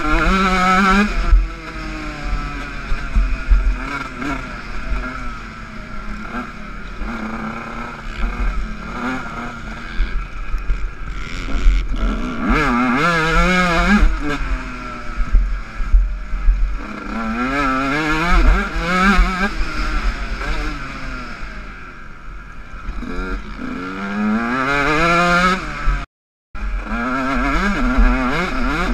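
Yamaha YZ125 125 cc single-cylinder two-stroke motocross engine ridden hard on a dirt track, its revs climbing and falling back over and over as the rider accelerates and shifts, heard from the rider's helmet. Wind rumbles on the microphone underneath.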